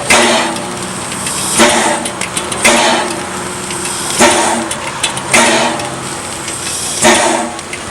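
Exhaust of Laona & Northern's 1918 Vulcan 2-6-2 steam locomotive No. 4 working slowly, a loud chuff about every second and a half, each one a sharp blast that dies away, over a steady low hum of the moving train.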